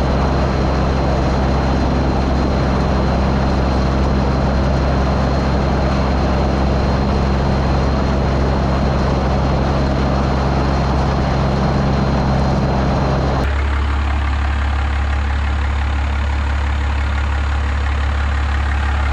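An engine idling steadily with a low, even hum. About thirteen seconds in, the sound changes abruptly: the low hum grows stronger and the higher noise drops away.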